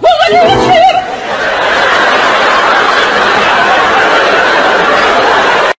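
Added laugh track: a crowd laughing loudly and steadily, opened by a brief wobbly warbling tone in the first second, and cut off abruptly at the end.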